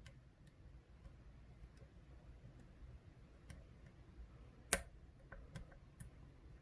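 Faint scattered clicks and ticks of a lock pick working the pin stacks of an ASSA 600 cylinder lock during single-pin picking, with one sharper click about three-quarters of the way through and a few small clicks right after.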